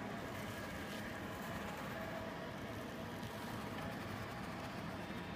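Spider Pack self-propelled robot stretch wrapper circling a pallet, its electric drive running with a steady whir and a faint whine.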